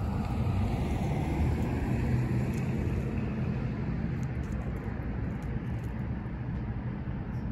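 Road traffic: a car drives past near the start and fades away, over a steady low rumble of traffic.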